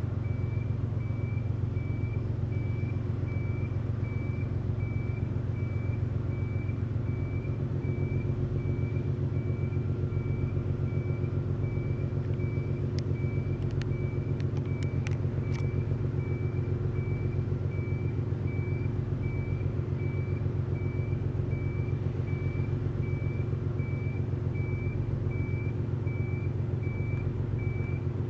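Steady low engine rumble, with a faint high-pitched beep repeating evenly, about three every two seconds. A few sharp clicks come about halfway through.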